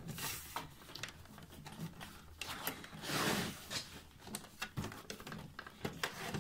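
Sheet-metal cover of a mini-ITX computer case being slid and pushed closed by hand: a scraping swish about three seconds in, with a few light clicks and taps around it.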